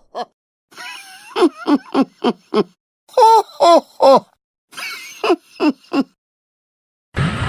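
A Dragon Ball Super fighter's voice: about a dozen short effort grunts and shouts, each dropping in pitch, in quick clusters with brief silences between them. Just before the end a steady rushing noise cuts in suddenly.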